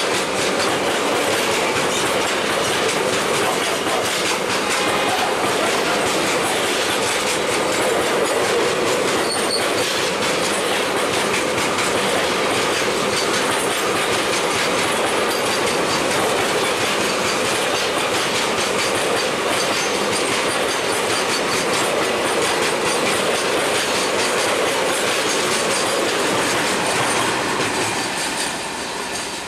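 Container freight train's wagons rolling past close by, steel wheels clattering over the rail joints in a steady run, until the last wagon and brake van go by near the end and the noise falls away.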